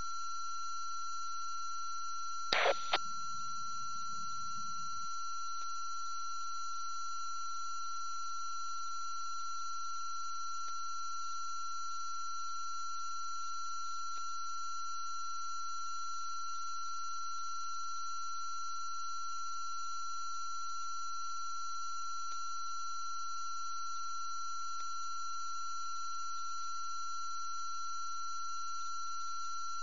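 A steady high-pitched tone, several pitches held together. About two and a half seconds in there is a brief loud burst of noise, with a low rumble trailing for about two seconds.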